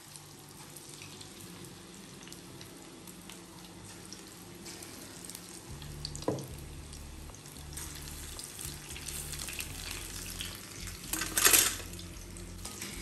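Lentil-batter fritters (dal pakode) frying in hot oil in a steel kadhai, a steady sizzling hiss as batter is dropped in. A short, louder burst of noise comes about eleven seconds in.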